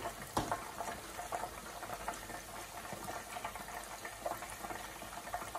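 Pork meatballs deep-frying in a pot of hot oil: a steady bubbling sizzle with scattered small pops and crackles.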